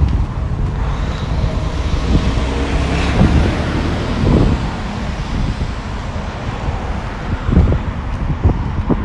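Wind buffeting the microphone over road traffic. A vehicle passes, rising and fading about three seconds in.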